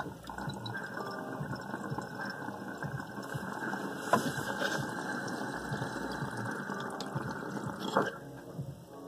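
Water in a small glass water pipe bubbling steadily as smoke is drawn through it, for about eight seconds, stopping shortly before the end with a sharp click.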